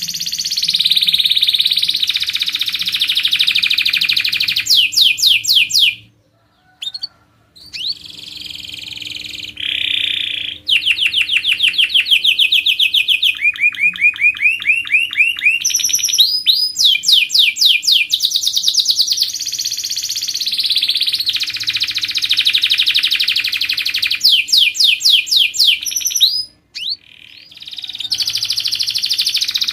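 Canary singing vigorously: a long song of fast rolling trills and rapid runs of repeated high notes. It breaks off briefly twice, about six seconds in and again near the end.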